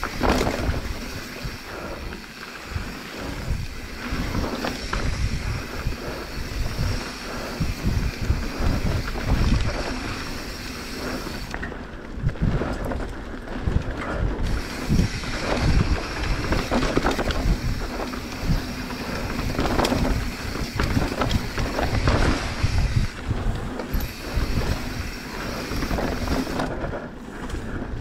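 Mountain bike riding down a dirt singletrack: wind rushing over the microphone, with tyres on dirt and the bike rattling over bumps in frequent short knocks.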